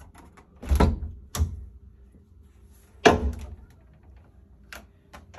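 Kitchenette cupboard and under-counter fridge doors being handled: a pair of knocks about a second in and another louder bump about three seconds in, with a few small clicks near the end.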